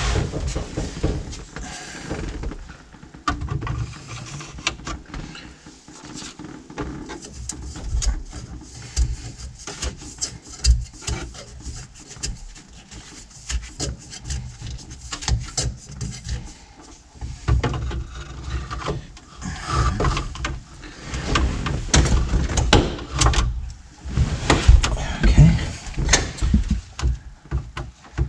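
Irregular clicks, knocks and rattles of hands fitting plastic dash vents into a truck dash.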